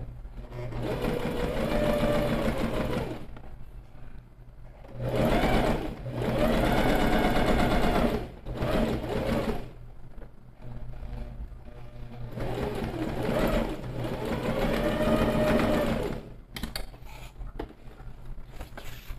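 Sewing machine stitching a seam in several runs with short pauses, its motor speeding up and slowing down again in each run. Near the end the stitching stops and only light clicks and rattles remain.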